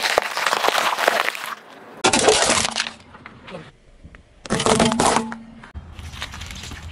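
Car tyre rolling over and crushing food on asphalt: a long crackling crunch of small bell peppers squashing, then two short sharp bursts of cracking as hazelnuts break. A low rumble of the tyre rolling follows near the end.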